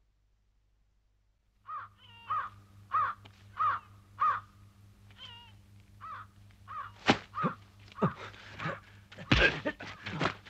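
A bird calls over and over, a short hooked call repeated about every two-thirds of a second, starting a couple of seconds in. From about seven seconds in, sharp blows and thuds of a fistfight cut across it.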